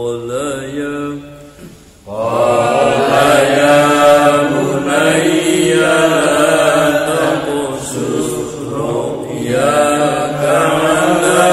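A man chanting Quranic verses in melodic murottal style, solo voice. One phrase ends in the first second and there is a short breath pause; just before two seconds in, a long, drawn-out phrase begins and runs on.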